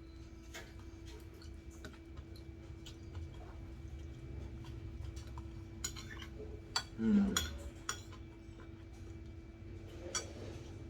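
Eating sounds: scattered clicks and clinks of a utensil against a plate or bowl, with a brief murmured 'mm' about seven seconds in, over a steady low hum.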